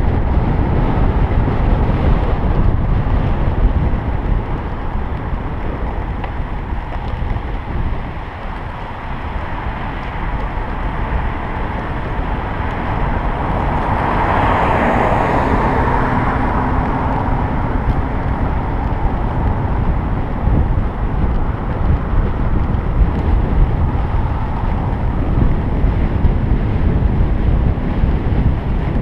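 Wind rushing over the microphone of a camera riding on a moving bicycle: a steady low buffeting, with a louder swell of rushing noise about halfway through.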